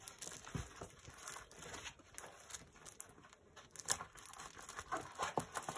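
Diamond painting canvas and its plastic cover film crinkling and rustling in short, irregular crackles as the canvas is rolled back the other way to make it lie flat.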